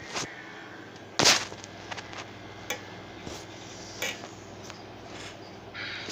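Handling noise on a phone's microphone: scattered short rustles and knocks as the phone is moved, the loudest about a second in.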